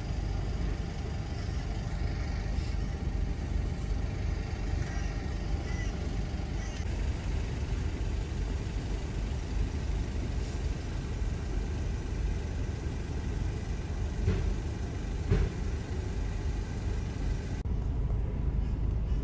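Steady low rumble of a Holden's engine and tyres heard from inside the cabin as the car creeps forward slowly, with a few faint clicks.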